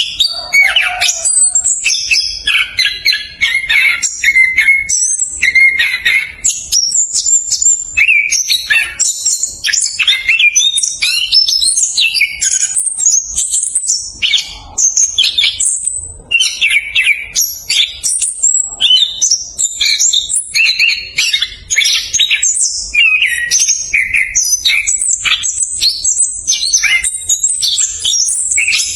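Orange-headed thrush (anis kembang) singing a fast, tightly packed, almost unbroken run of varied high chirping and warbling notes, the rolling song known as 'ngerol speed rapat'.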